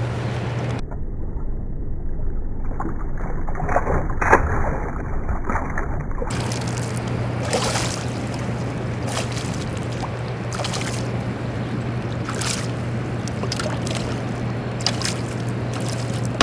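Boat on the river: a steady low hum from the boat's motor under water rushing along the hull and wind on the microphone, with a few scattered knocks.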